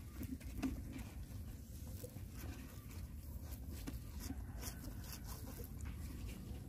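Puppies eating and jostling with their heads in a plastic container: scattered small clicks and knocks of chewing and of the container, over a low steady rumble.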